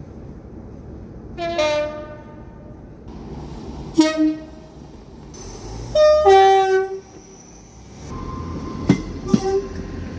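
Train two-tone horns giving several short blasts, the loudest about six seconds in stepping from a high note down to a low one, over the steady rumble of the train. Two sharp clicks come near the end.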